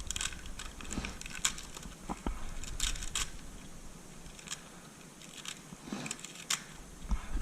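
Scattered small clicks and rustles of hands handling a tire repair plug strip and the plug insertion tool, readying the plug to be threaded into the tool's eye.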